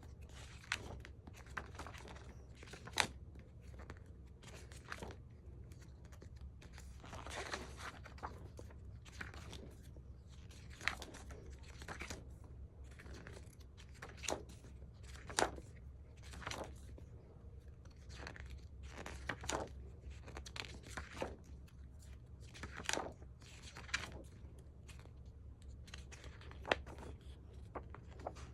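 Stiff, glossy photobook pages being turned one after another, each turn a short crisp rustle or slap, at uneven intervals of a second or two, over a steady low room hum.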